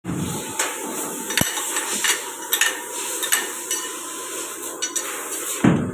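Irregular metallic clinks and knocks over a steady machine hiss with a faint hum, with a heavier thud near the end.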